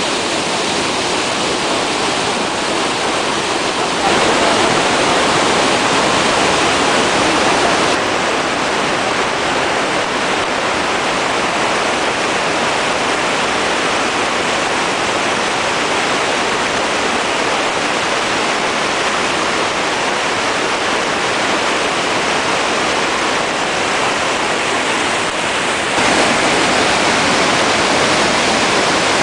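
Loud, steady rush of water from the Iguaçu Falls waterfalls and their churning rapids. The sound jumps abruptly in level and tone about four seconds in, again about eight seconds in, and near the end.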